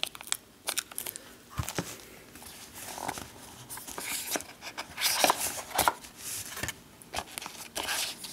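Packaging being handled by hand: plastic wrap crinkling and a cardboard box insert being lifted, with irregular rustles and sharp clicks, loudest about five to six seconds in.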